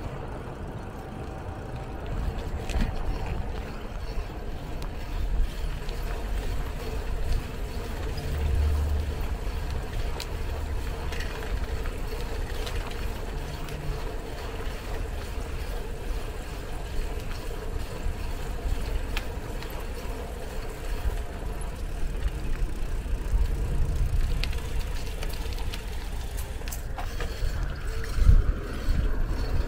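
Steady low rumble and wind buffeting the microphone while riding a mamachari city bicycle, with scattered faint clicks and rattles.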